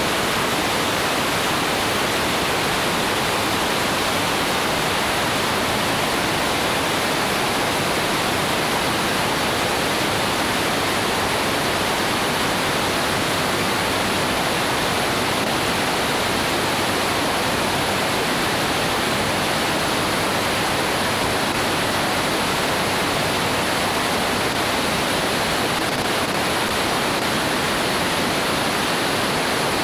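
Wind rushing over a camera mounted outside under the wing of a Cessna 205 in flight: an even, steady hiss of airflow noise with no distinct engine tone.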